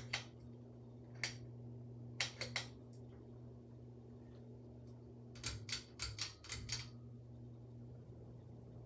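Hampton Bay Clarkston II ceiling fan motor running with a steady low hum, while a series of sharp clicks come in scattered groups, the busiest cluster in the second half.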